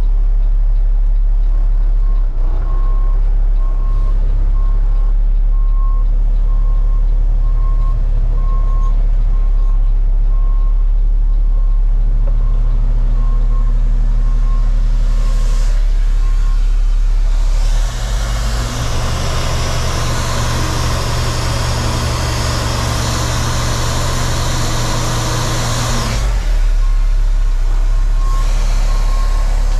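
Roll-off garbage truck's diesel engine running, its reversing alarm beeping in an even train for stretches at the start and again near the end. In the middle a loud rushing noise, with the engine note pitched higher, comes in abruptly and cuts off about eight seconds later.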